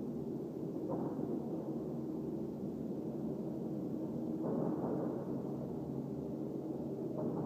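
A low, droning rumble from outside, continuous and unidentified, with faint steady tones in it. It swells briefly three times: about a second in, about four and a half seconds in, and near the end.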